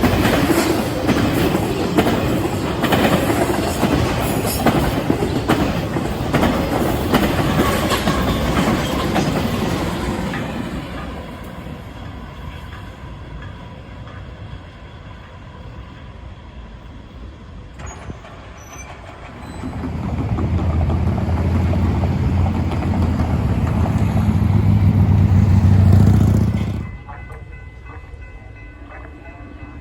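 A train passing close by, its wheels clattering over the rail joints, fading away about ten seconds in. Later a loud low rumble swells for several seconds and cuts off abruptly.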